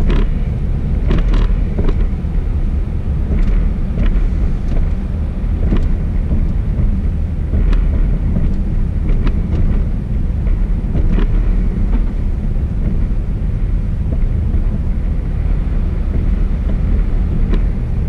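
Steady low road rumble of a car driving, engine and tyres heard from inside the cabin. A few faint brief clicks sound here and there.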